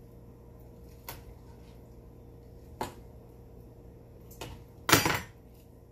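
Kitchen knife clicking against a plastic cutting board while deboning a fox squirrel: three short sharp clicks about a second and a half apart, then a louder, rougher clatter about five seconds in, over a steady low hum.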